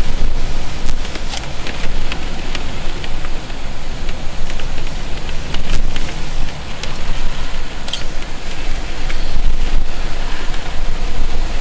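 Thunderstorm rain with wind: a steady, loud rush with a deep low rumble and scattered sharp taps of drops striking.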